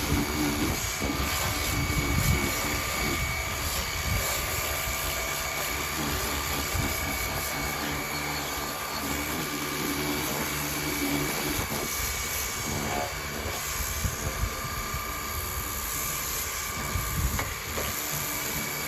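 Pressure washer jet spraying water onto a mower's cutting deck and wheel: a steady hiss of water on metal, with a thin steady whine underneath.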